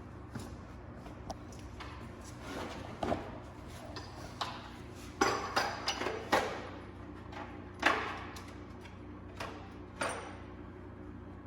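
Metal hand tools clinking and clanking against each other and the engine: irregular sharp knocks, several with a brief metallic ring, the loudest cluster about halfway through.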